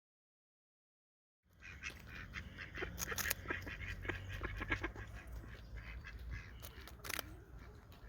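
A flock of birds calling, many short rapid calls overlapping, starting about a second and a half in after dead silence.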